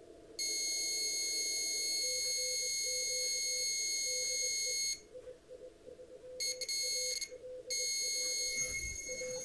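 A received Morse code (CW) signal: a low tone keyed on and off in dots and dashes. Over it a louder, shrill electronic buzz comes in just after the start and holds steady for about four and a half seconds, then returns in shorter spells that do not follow the keying.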